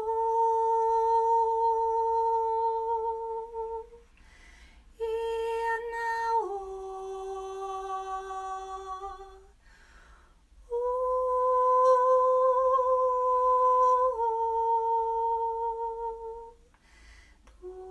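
A woman's voice toning long, wordless held notes in a light language transmission. There are three phrases with short breaths between them, each held on one steady pitch, and the second and third each step down to a lower note partway through.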